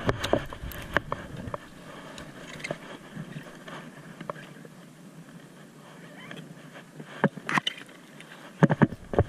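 Handling noise from landing a bass on rod and reel: scattered clicks, knocks and scrapes of the gear, with a cluster of louder knocks in the last two seconds as the fish is swung in. A low rumble stops about a second and a half in.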